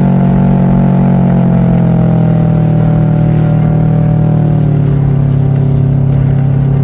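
Subaru WRX STi's turbocharged boxer four-cylinder engine and exhaust making a loud rumble, its pitch slowly falling as the revs drop.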